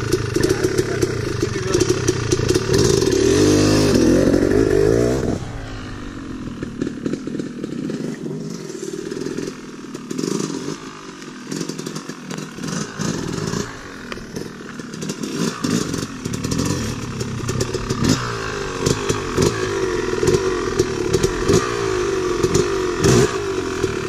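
Two-stroke Yamaha 250 dirt bike engines running. A close engine revs up over the first few seconds and drops away suddenly about five seconds in. After that the engines rev in short blips, growing louder again toward the end.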